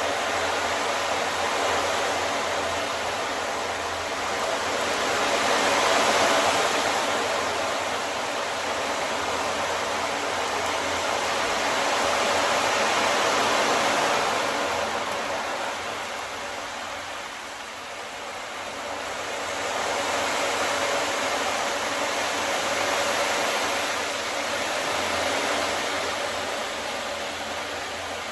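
Ocean drum: beads rolling across the drumhead in a hiss like surf, swelling and ebbing in slow waves several seconds apart, with faint steady ringing tones beneath.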